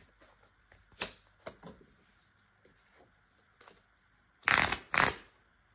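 Tarot cards being handled and shuffled: a few light taps and clicks, then two louder bursts of shuffling about half a second apart near the end.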